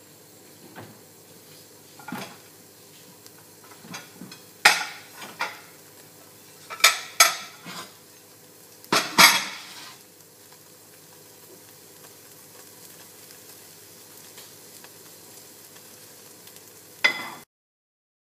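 Omelette frying with a faint steady sizzle in a frying pan. A utensil clinks and scrapes against the pan several times, in a run of sharp knocks from about five to ten seconds in and once more near the end.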